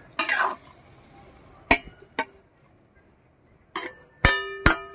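A metal ladle stirring in a metal wok of curry: a short scrape, a few sharp knocks against the pan, then two ringing metallic clangs near the end.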